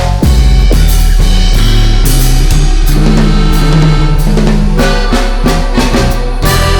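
Background music with a drum kit and a bass line.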